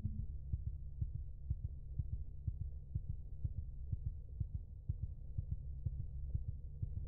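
Sound-design track of a low rumbling drone with soft heartbeat-like thuds, about two a second, as a lingering gong-like tone fades out in the first moment.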